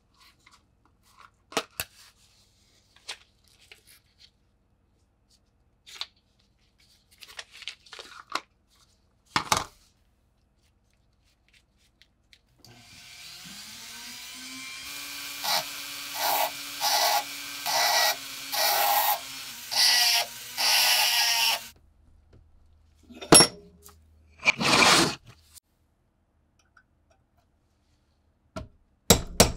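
A small high-speed rotary tool spins up with a rising whine, then grinds at a rusty lock part in about seven short bursts as it is pressed to the metal and lifted off. Scattered clicks of metal parts being handled come before it, and two short bursts and a few sharp knocks follow near the end.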